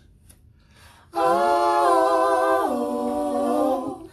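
Small gospel vocal group singing a cappella: after a brief pause about a second in, the voices hold a long "oh" in harmony, and the chord steps down to a lower one partway through before fading.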